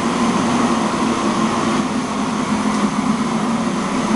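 Loud, steady machine drone with a low hum and a higher whine, the kind made by a large fan or blower.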